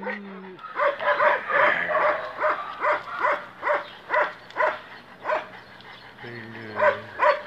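A dog licking the camera lens, a run of short wet licks about two or three a second that pauses about five and a half seconds in and starts again near the end.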